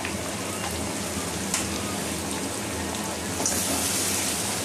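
Chicken curry frying and sizzling in a metal kadai, with a spoon of ghee just stirred in, and faint scrapes of a metal spatula against the pan. The sizzle grows louder and brighter about three and a half seconds in.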